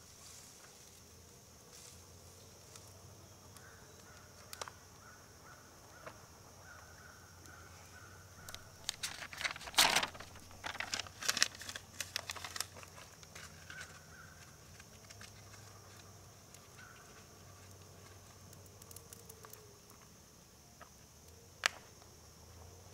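Insects buzzing steadily in a high band. About nine seconds in comes a burst of sharp clicks and knocks, and there is one more sharp click near the end.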